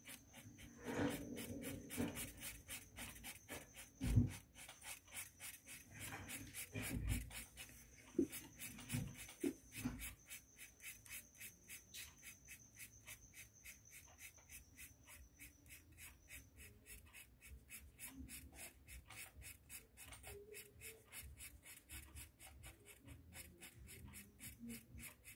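Colored pencil scratching back and forth on coloring-book paper in quick, even strokes, about four a second. A few louder knocks and rustles come in the first ten seconds.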